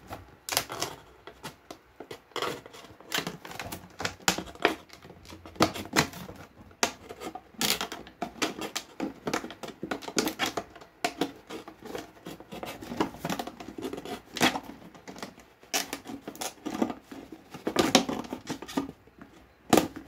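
Thin plastic drink bottle being cut around with a scalpel: a steady run of irregular sharp clicks and crackles as the blade works through the plastic and the bottle is gripped and turned.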